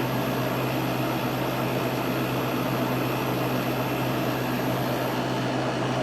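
Kenmore 5000 BTU window air conditioner running on its high setting: a steady rush of air from the fan over a constant low motor hum.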